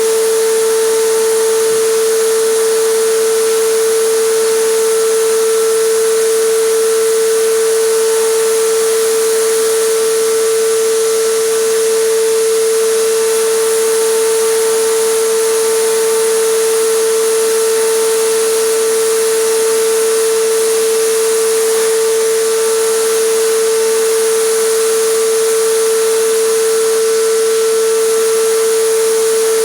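Air compressor running with a steady hum while its spray gun hisses, spraying acrylic resin onto a floor.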